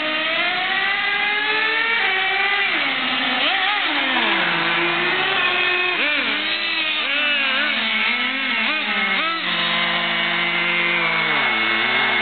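Small nitro engines of radio-controlled cars running at high pitch, rising and falling repeatedly with the throttle. Near the end the pitch drops and holds steady at an idle.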